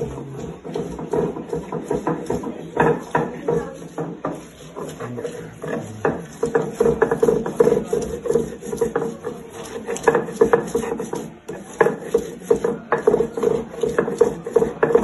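Stone pestle grinding chillies on a flat stone mortar (ulekan and cobek): quick, repeated rubbing and knocking strokes of stone on stone through the coarse paste, grinding a chilli paste.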